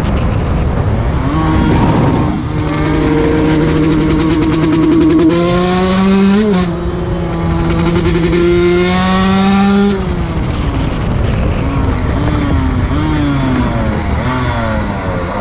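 125 cc two-stroke dirt bike engine revving: the pitch climbs and is held high for several seconds with a brief dip about six and a half seconds in, then falls away. Near the end it runs through a string of short rises and falls.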